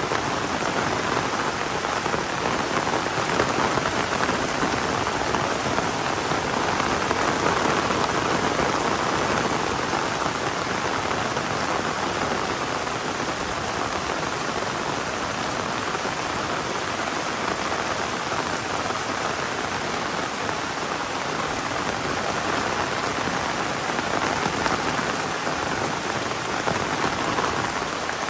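Heavy rain pouring steadily in a tropical downpour, a dense even hiss of drops hitting surfaces that swells slightly a few seconds in.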